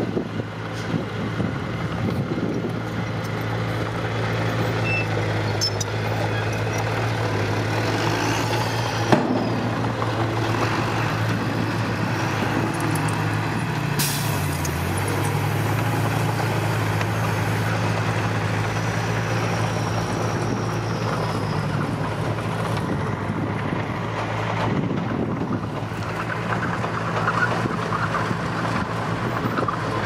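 Small dump trucks' diesel engines running steadily while their beds are raised to tip soil. There is a sharp knock about nine seconds in, and the engine pitch dips briefly around fourteen seconds in.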